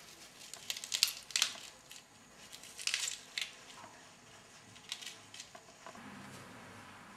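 A small knife scraping and cutting the tough fibrous choke out of a halved Roman artichoke: several short, crisp, crunching scrapes in clusters.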